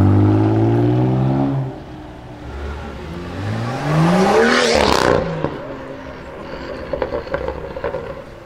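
Honda NSX engine revving hard as the car pulls away, its note climbing and then cutting off about a second and a half in. A second sports car with an Akrapovic exhaust then revs up and passes close by, its pitch rising to a peak and falling away, followed by a few sharp cracks near the end.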